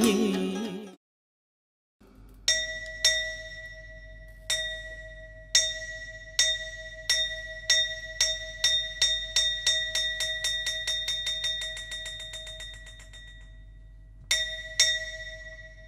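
Music fades out, and after a short silence a small metal bell is struck again and again, each stroke ringing on one clear pitch. The strokes start about a second apart and speed up into a fast roll that dies away, and two more strikes come near the end.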